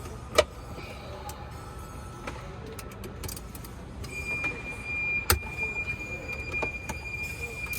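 Scattered metallic clicks and knocks of a tool working on a battery cable terminal, two of them sharp and loud: one just after the start, one about five seconds in. A steady high tone sets in about four seconds in and holds.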